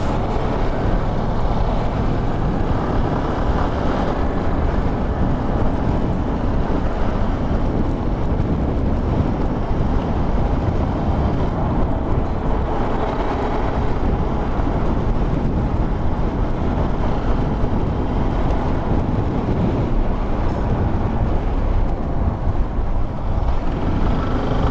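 Yamaha motorcycle ridden at road speed: a steady, loud rush of wind on the microphone, with the engine running underneath.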